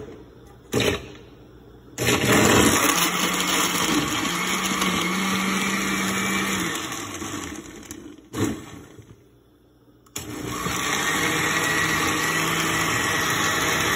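A countertop blender with a glass jar blending water, kiwi, apple and celery into a green smoothie. After a knock, the motor starts about two seconds in and runs steadily for about five seconds, then winds down. A second knock follows, and the motor starts again about ten seconds in and keeps running.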